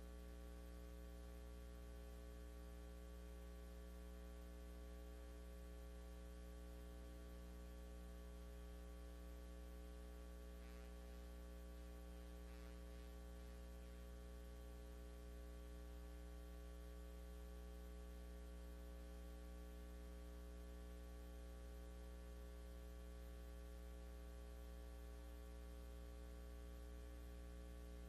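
Steady electrical mains hum, a low buzz made of many even tones, at a very low level. Two faint brief sounds come about 11 and 13 seconds in.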